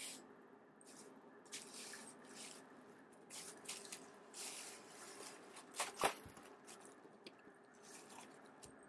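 Bubble wrap crinkling and rustling in short, irregular bursts as a cat paws and noses at it, with one sharper crackle about six seconds in.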